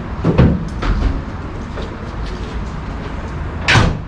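Thumps from a fiberglass camper shell being shifted into place on a pickup's bed rails: one thump about half a second in and a louder, sharper knock near the end, over a steady low rumble.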